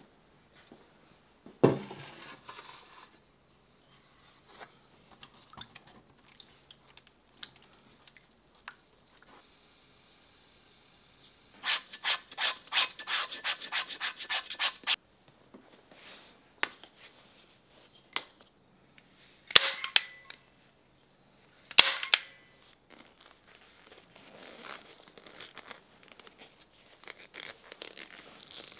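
Leather handwork on a stone slab: a quick run of rubbing strokes, about six a second, as a leather insole is worked on a granite slab, with a few sharp knocks, one near the start and two a little past the middle, and faint scraping between.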